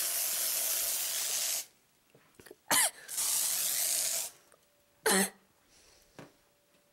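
Aerosol can of Glade air freshener sprayed in two long, steady hissing blasts, with two short coughs in between.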